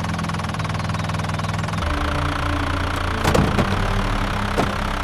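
A vehicle engine running steadily, with a few sharp knocks about three and a half seconds in and again near the end.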